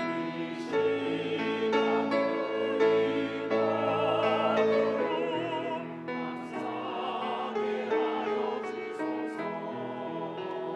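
Church choir singing an anthem with vibrato over piano accompaniment; the voices thin out near the end, leaving mostly the piano.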